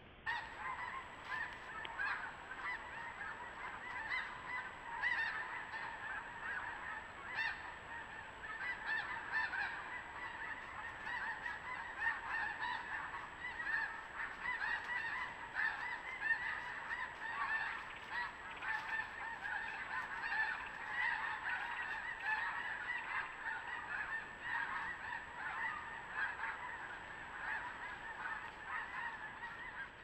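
A large flock of geese calling continuously, many honks overlapping into a steady clamour.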